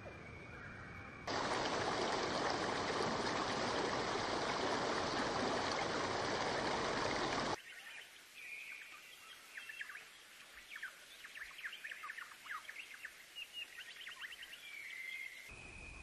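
Steady rushing water, like a stream, for about six seconds, cutting off suddenly to small birds chirping in quick, busy calls. A faint steady high whine sits under the quieter parts at the start and end.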